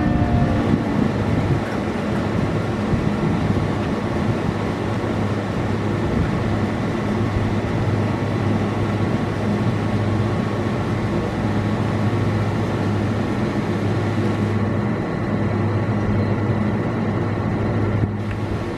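Federal Signal Thunderbolt 1000T siren winding down at the end of its test, its falling tones fading out within the first second or so. A steady low hum with a rushing noise stays after it.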